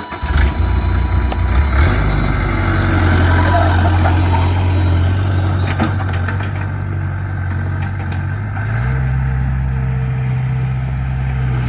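Heavy-equipment engine running steadily at close range, its engine speed stepping up about nine seconds in.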